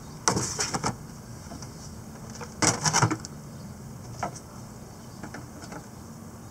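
Handling noise: two clusters of short knocks and rattles, the first just after the start and the second about two and a half to three seconds in, with a few faint ticks later, over a steady low hum.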